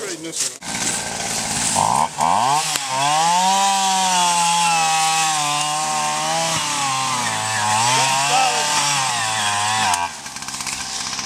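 Gas-powered one-man earth auger's two-stroke engine revving up about two seconds in and running hard as it bores a post hole, its pitch rising and falling with the load. The engine drops back sharply to a quieter idle just after ten seconds in.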